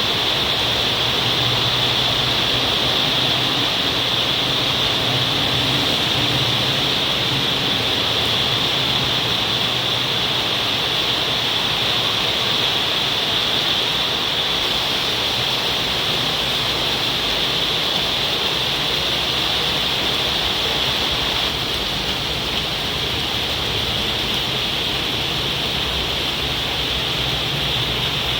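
Heavy rain falling hard, a steady dense hiss.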